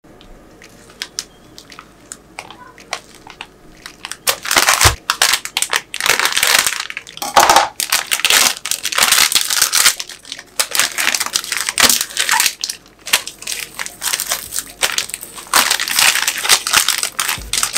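Plastic wrapper of a puff pastry pack crinkling loudly in repeated bursts as hands tear it open and pull out the pastry sheets, after a few light clicks in the first seconds.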